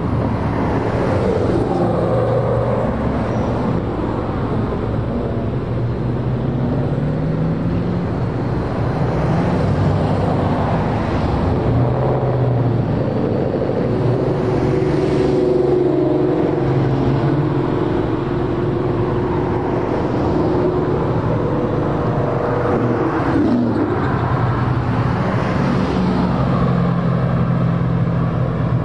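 A steady stream of Ford Mustangs driving past at cruising speed, several engines heard at once, their pitch rising and falling as each car goes by.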